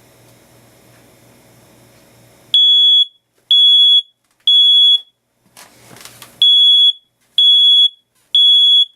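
Newer Code One smoke alarm going off with a loud, high-pitched beep, starting about two and a half seconds in: two groups of three half-second beeps with a pause between, the temporal-three evacuation pattern. It is sensing the smoke.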